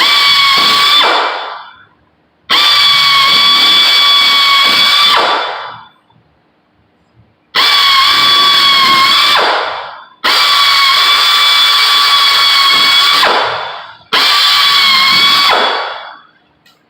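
Power drill pre-drilling holes in sheet metal, run in five bursts of a steady high whine, each winding down with a falling pitch when the trigger is let go.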